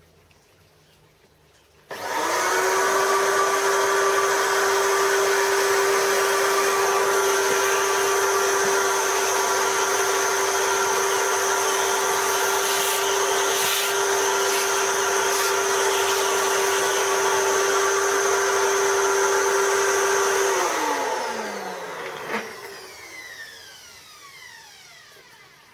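Vacuum cleaner switched on about two seconds in, running with a steady whine while its hose nozzle sucks aluminium swarf off a lathe chuck and workpiece. It is switched off near the end, the motor winding down with a falling whine, and there is a single click as it slows.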